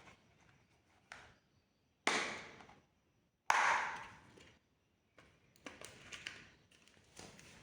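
Two sharp knocks about two and three and a half seconds in, each ringing briefly, followed by a run of lighter clicks and clatter, like objects being set down and handled.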